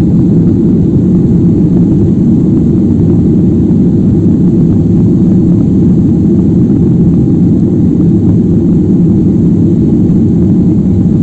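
Cabin noise inside a Ryanair Boeing 737 as it rolls along the runway: a loud, steady deep rumble of the jet engines and the wheels on the tarmac.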